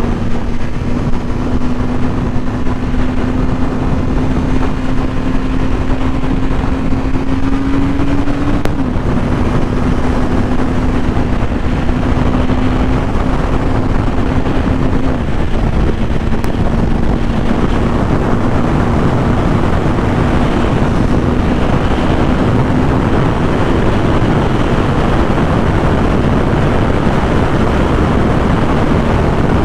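Kawasaki Z900's inline-four engine running at highway speed, under a loud, steady rush of wind noise on the microphone. The engine note climbs slowly, drops suddenly about nine seconds in, then holds steady before it is lost in the wind rush after about twenty-three seconds.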